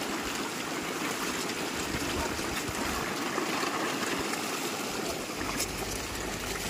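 A dense crowd of carp thrashing and splashing at the water's surface as they scramble for thrown feed, a steady churning splash of water.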